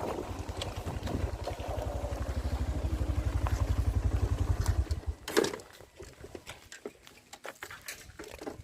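A small engine, likely a motorcycle's, running with a regular low throb that grows louder, then stopping about five seconds in. A sharp knock follows, then light clattering.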